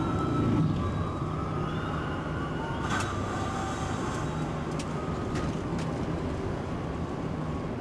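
Heavy truck's diesel engine droning steadily at cruising speed, heard from inside the cab over road noise, with a few light clicks.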